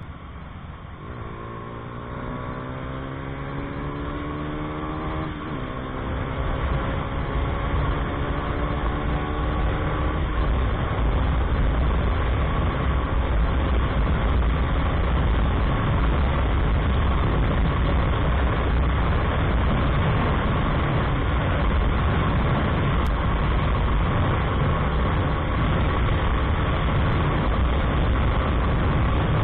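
KTM Duke 250's single-cylinder engine accelerating hard on a top-speed run, its pitch rising, dropping at a gear change about five seconds in, then rising again. From about ten seconds on, heavy wind rush on the microphone swamps the engine in a steady loud drone at high speed.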